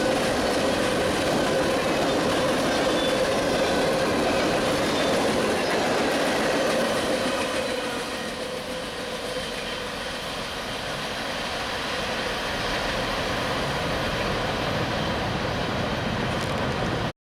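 Freight train of coal hoppers rolling past, steel wheels clicking over the rail joints with a steady ringing tone. The sound drops as the last car goes by about eight seconds in, then continues more quietly as the train pulls away, and cuts off abruptly near the end.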